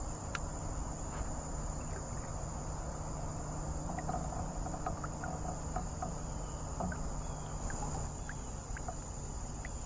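Steady high-pitched chorus of insects, with faint scattered ticks and a low rumble underneath.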